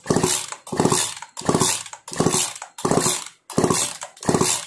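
Petrol chainsaw's recoil starter pulled in quick short strokes, about two a second, spinning the two-stroke engine over freely with the spark plug out of the cylinder. It is a spark test, the plug held in its cap against the cylinder to check for current.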